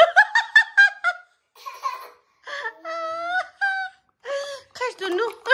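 Laughter, a toddler's high laughter among it: quick runs of short laughs, a long high-pitched squeal about three seconds in, then more bursts of laughter near the end.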